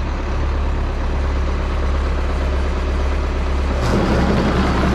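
Old John Deere 3010 tractor engine running steadily, then louder and rougher about four seconds in as it picks up.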